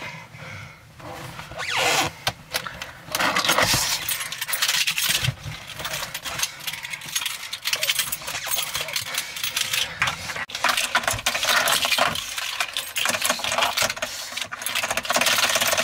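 Hurried metallic clicking, clattering and jangling of a seat belt buckle and car keys being fumbled, sparse at first and then a nearly continuous rattle from about three seconds in.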